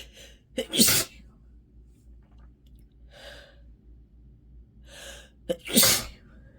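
A person sneezing twice, about five seconds apart, each sneeze led by a short sharp catch of breath. Softer sniffs and breaths come in between, from an itchy, runny nose.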